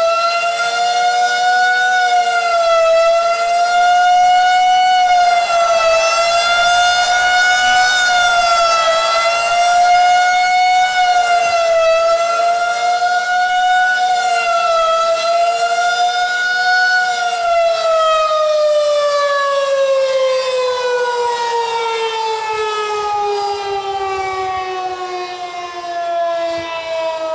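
Outdoor tornado warning siren sounding a loud steady tone during its monthly test, holding two notes together with the pitch wavering slightly every few seconds. About two-thirds of the way through, its pitch begins to slide steadily downward as the siren winds down.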